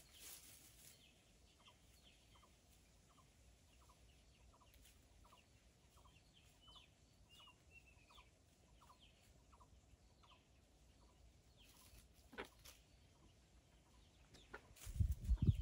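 Free-ranging chickens clucking softly, against an even run of faint ticks about three a second and a few light bird chirps. Near the end comes a loud low rumble.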